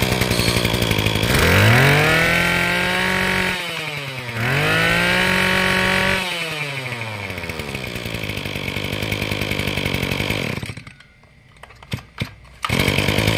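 Tanaka 22 cc two-stroke brush cutter engine running. It is revved up and back down twice, settles back to a steady run, cuts out for about two seconds near the end, then is running again.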